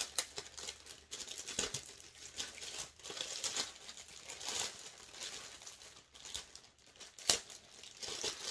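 Clear plastic packaging bag crinkling and rustling in the hands as a canvas pencil case is slid out of it, with one sharp snap about seven seconds in.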